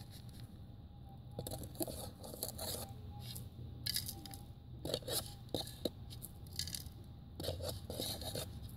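Gravelly soil crunching and scraping in a plastic scoop and in the hand as it is sifted and passed over a metal detector coil, in irregular short bursts. Under it, the Minelab GPX 5000 detector's faint steady threshold tone.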